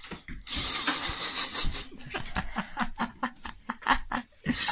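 A loud breathy rush lasting just over a second, then laughter in quick short bursts.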